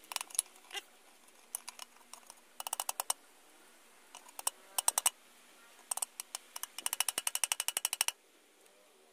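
Small hammer tapping a short pipe that is tack-welded onto a cutting-torch nozzle, knocking it straight to centre it because it sits crooked. Light sharp metal taps come singly and in quick runs, the longest run near the end, which stops abruptly.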